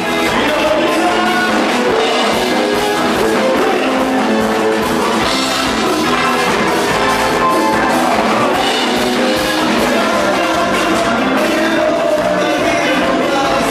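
Band dance music with a steady drum beat, guitar and singing.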